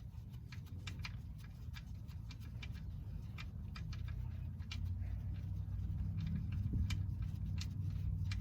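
Oil drain plug on a 2006 Infiniti G35's oil pan being unscrewed by hand: light, irregular clicks and handling noise, with a low rumble growing louder about five seconds in.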